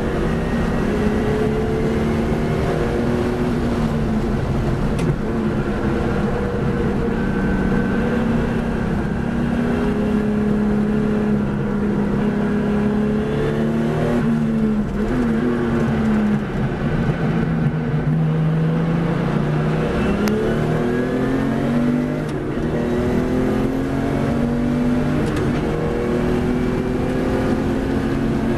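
Racing car engine heard from on board, pulling through the gears: its pitch climbs slowly and drops back at each upshift. About halfway through it comes off the throttle and shifts down for a corner, then accelerates hard again through several upshifts.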